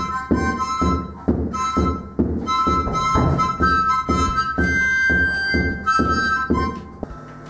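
Harmonica playing a tune with several notes held together, over drums keeping a steady beat of about three strokes a second; the music stops shortly before the end.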